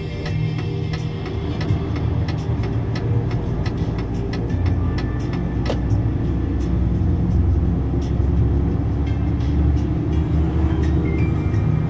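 Engine and road noise from inside a moving vehicle's cab: a steady low rumble with a slowly shifting engine note and frequent light ticks and rattles.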